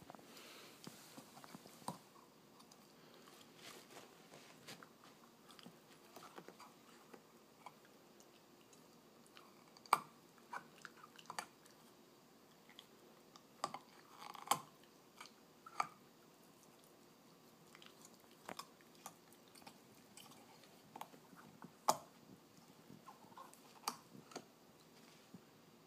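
A puppy gnawing on a bone-shaped chew toy: faint, irregular clicks and scrapes of teeth on the toy, with a few sharper, louder bites scattered through.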